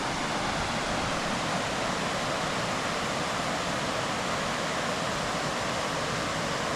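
Steady rush of flowing water at a spring, an even hiss without change.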